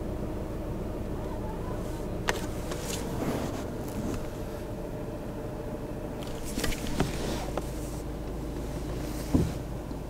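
Car cabin noise from a slow-moving car: a steady low engine and road hum, with a few sharp clicks and knocks scattered through it.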